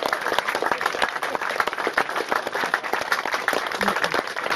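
A group of people applauding: many hands clapping steadily, with one pair clapping close by.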